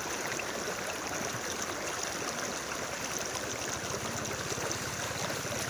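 Floodwater sloshing and rushing steadily around the legs of people wading knee-deep through it.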